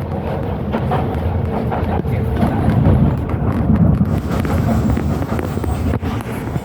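Docklands Light Railway train running along the track: a steady low rumble of wheels and running gear, with scattered clicks and knocks from the rails. A higher hiss joins in about four seconds in.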